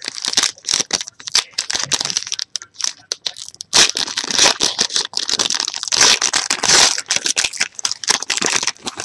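Foil trading-card pack wrapper being torn open and crinkled by hand, a dense, irregular crackling that is loudest from about four to seven seconds in.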